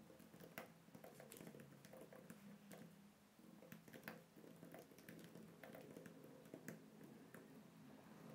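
Faint computer keyboard typing: irregular, quick keystroke clicks over a low steady hum.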